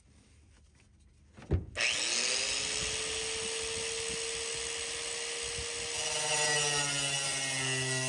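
Angle grinder with a thin cut-off wheel switched on about a second and a half in, spinning up to a steady whine. A few seconds before the end its sound changes as the wheel starts cutting into the truck bed's sheet metal, throwing sparks.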